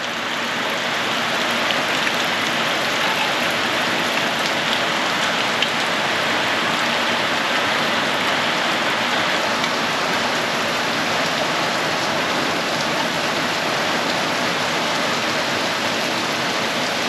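Steady rain falling, a loud even hiss of drops on surfaces that builds a little in the first second and then holds.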